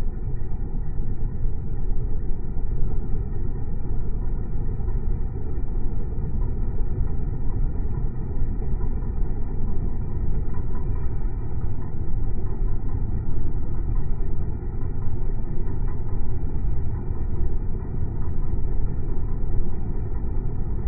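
Comfort Zone electric heater fan running, a steady low rush of air with no change.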